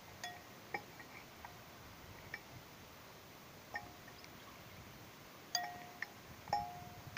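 Wrench clinking on the metal pulley hub of a water-pump engine as its bolts are worked loose: about ten short metallic clinks at irregular intervals, some ringing briefly, the loudest near the end.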